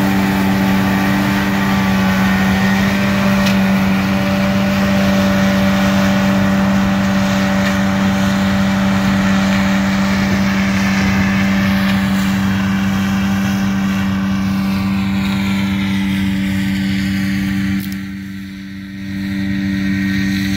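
Massey Ferguson 9565 combine harvester running steadily while harvesting canola: a constant machine drone with a strong low hum. Its higher sounds fade over the second half as the machine moves away, and the sound dips briefly near the end.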